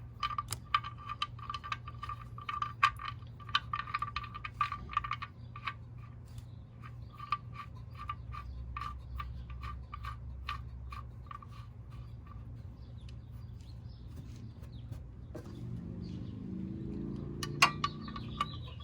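Ratchet wrench clicking in quick runs, each click ringing briefly, as a 13 mm socket threads the oil pan drain bolt back in. The clicks come thick for the first five or six seconds, then thin out, with one louder click near the end.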